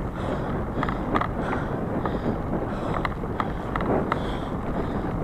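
Bicycle rolling fast over a rough dirt forest trail: steady tyre rumble and wind on the microphone, with short rattles and clicks from the bike over bumps.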